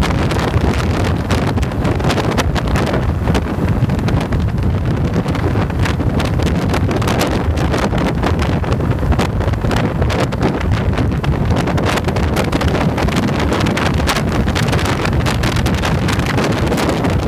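Wind buffeting the microphone of a camera on a Yamaha motorcycle at highway speed, over a steady low drone from the bike's engine and tyres.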